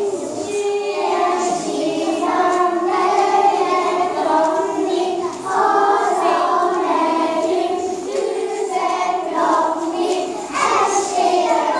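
A group of young kindergarten children singing a song together in chorus.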